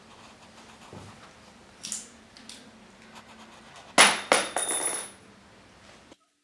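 A few faint clicks, then about four seconds in a loud sharp bang followed by a second of clattering with a faint metallic ring. The sound cuts off abruptly near the end.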